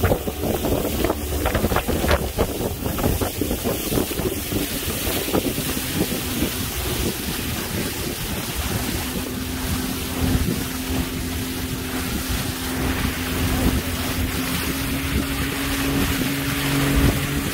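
Small fishing boat's motor running under way, with wind buffeting the microphone and the sea rushing by; a steady engine hum stands out more clearly from about halfway on.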